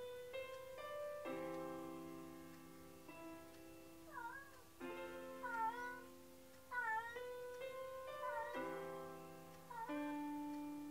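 A domestic cat meowing five times in short calls, each dipping then rising in pitch, about every second and a half from about four seconds in: the lonely crying of a cat left alone at home. Piano music plays underneath.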